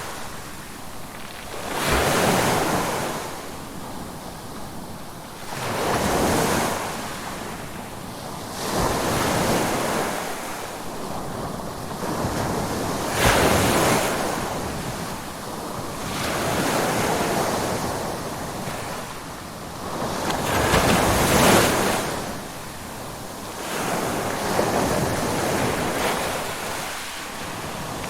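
Ocean waves breaking in steady succession: a wash of surf that swells and falls away roughly every four seconds.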